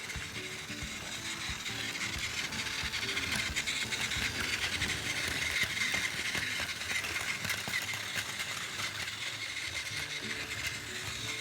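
Battery-powered Plarail 923 Doctor Yellow toy train running on plastic track: the small motor and gearbox whir with rapid clicking from the wheels and rail joints. It grows louder toward the middle, then eases off.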